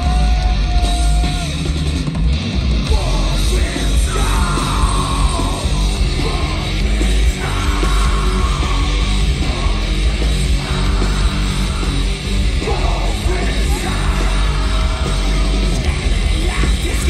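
A live metal band playing loudly, with a vocalist shouting over heavy drums and distorted guitars, heard from within the crowd.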